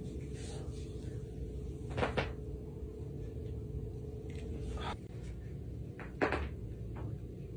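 Spinal joints cracking during a back adjustment: a quick double pop about two seconds in, another near five seconds, and the loudest crack a little after six seconds, over a steady low hum.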